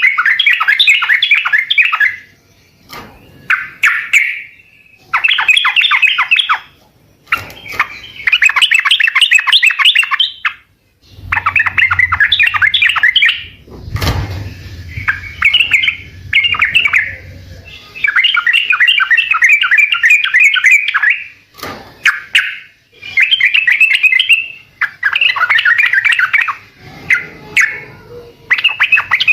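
Yellow-vented bulbul (trucukan) singing: repeated phrases of rapid, bubbly chattering notes, each a second or two long, with short gaps between them. A single knock comes about halfway through, with a faint low hum under the song for several seconds around it.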